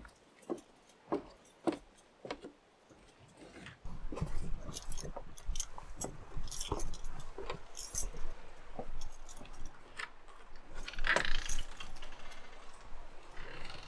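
Footsteps, at first single steps about every half second, then from about four seconds in a steady close jangling and clatter as the walker crosses the wooden deck toward the cabin door.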